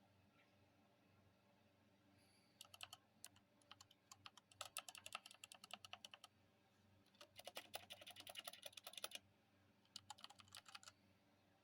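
Mechanical keyboard being typed on in quick runs of keystrokes, four bursts of rapid clicking with short pauses between them.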